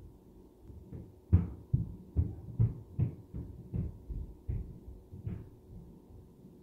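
A run of about ten heavy thuds, two or three a second, coming down through the ceiling from the unit upstairs. The first thud is the loudest. The thuds stop about five and a half seconds in.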